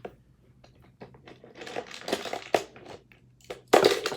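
Plastic Hot Wheels track pieces and parts being handled and fitted together: irregular clicks, knocks and rustling, loudest near the end.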